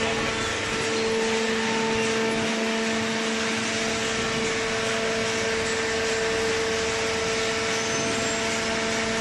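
Hydraulic waste paper baler running, its pump and motor giving a steady hum over an even hiss.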